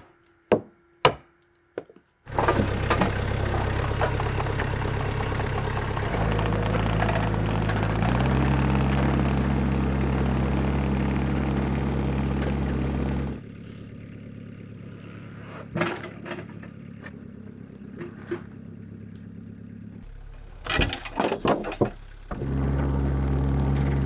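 A few sharp knocks, then the bandsaw sawmill's engine starts suddenly about two seconds in and runs steadily, its note shifting twice. About halfway through it drops to a much quieter hum with a few knocks, and the loud running comes back near the end.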